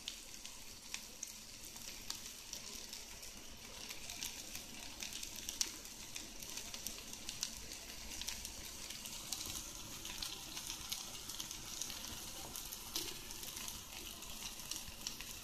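Sliced bell peppers and red onion sautéing in a little oil in a frying pan: a steady high sizzle with scattered small crackles.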